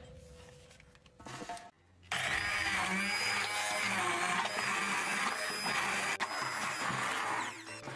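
Bosch hand-held immersion blender running in a tall plastic beaker, puréeing cooked chickpeas with spices and liquid. It starts about two seconds in, runs loud and steady for about five seconds, and stops just before the end.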